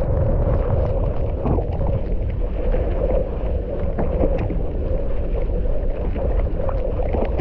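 Wind buffeting an action camera's microphone at riding speed, over the steady rumble of mountain bike tyres on a dry dirt trail, with scattered short knocks and rattles from the bike.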